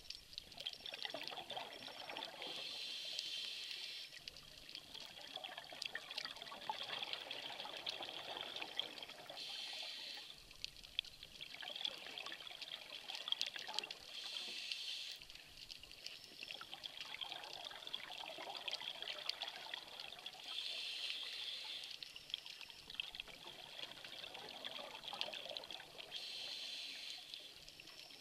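Scuba regulator breathing underwater: a hiss on each inhale alternating with a gush of bubbles on each exhale, about five breaths, one every five to six seconds, over a steady faint crackle.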